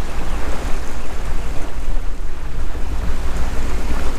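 Wind buffeting the microphone over the steady low rumble of a boat's engine, pushing the boat along slowly.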